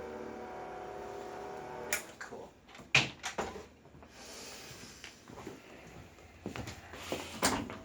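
Electric massage machine running with a steady hum, switched off about two seconds in. Then several sharp knocks and clatter of handling, the loudest about three seconds in, with more knocks near the end.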